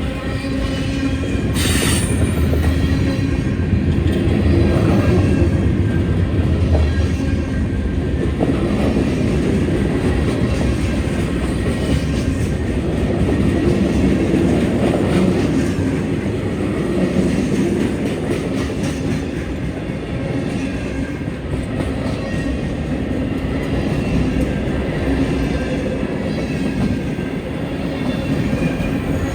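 Freight train cars rolling past on steel rails: a continuous rumble with steady wheel squeal and some clickety-clack. A sharp metallic clank comes about two seconds in.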